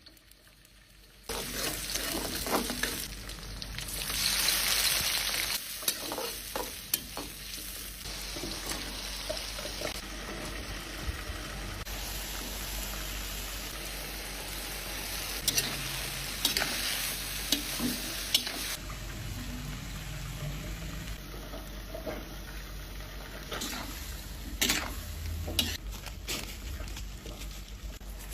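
Shrimp and broccoli stir-frying in a pan: a sizzle that starts about a second in and is loudest a few seconds later, then settles into a steady frying hiss. Scattered clacks and scrapes of a utensil stirring against the pan run through it.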